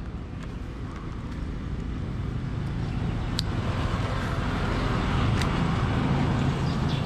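A motor vehicle's low rumble, growing steadily louder. Two sharp clicks stand out about three and a half and five and a half seconds in.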